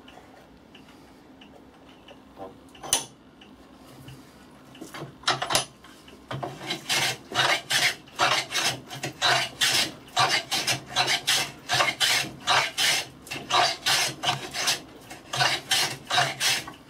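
Wooden hand plane taking short, quick shaving strokes along a wooden plane blank clamped in a vise, about two to three strokes a second, starting about six seconds in after a few isolated knocks; the piece is being trued down to its slope.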